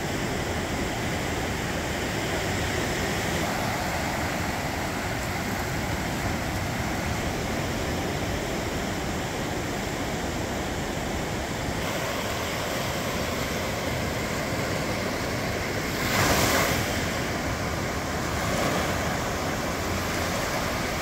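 Pacific surf washing up a sandy beach: a steady rush of small breaking waves, with one louder surge about three-quarters of the way through.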